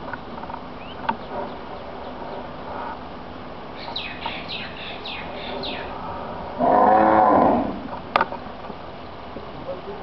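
A cow moos once, loudly, for just over a second about two-thirds of the way in. Before it comes a quick run of high chirps, and a sharp click follows it.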